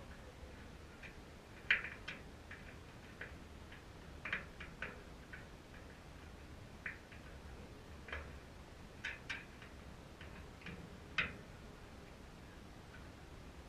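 Scattered light clicks and ticks at irregular intervals, with no engine running; the sharpest comes about two seconds in, and another near the end.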